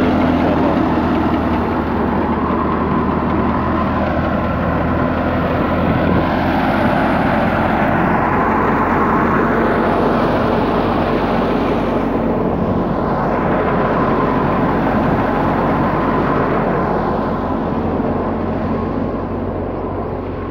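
Wheat thresher running steadily under load: a continuous engine hum beneath the broad rushing noise of the threshing machine. It grows slightly fainter near the end.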